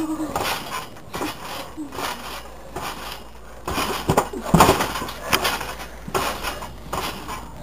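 Garden trampoline being jumped on: a thump at each landing on the mat, repeating irregularly about once or twice a second, the loudest landing about four and a half seconds in, just after a flip.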